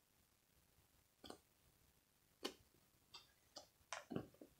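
Near silence broken by a few faint, short clicks and taps from hands handling a soft squishy toy, one about a second in, another midway, and a quick cluster near the end.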